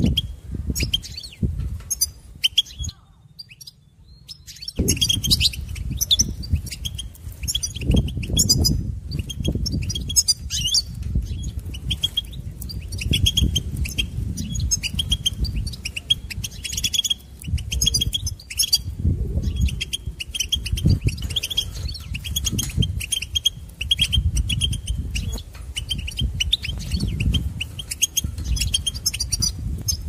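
European goldfinch singing: a long run of fast twittering and trilling notes, broken by a short pause about three seconds in. A low rumble runs underneath.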